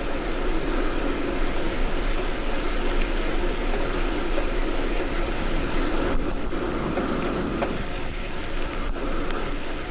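Steady rushing wind and road noise while riding a bicycle along a road.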